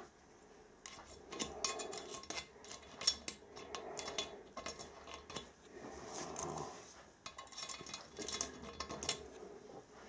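Loose steel jaw plate being shifted and set down against the cast-iron body of a bench vice: a run of light metallic clinks and scrapes.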